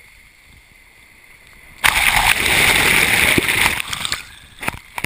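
Sea water rushing and splashing over a GoPro camera housing as it dips into the bow wave beside a sailboat's hull: faint water hiss at first, then a sudden loud rush of water starting about two seconds in and lasting about two seconds, followed by a few sharp splashes near the end.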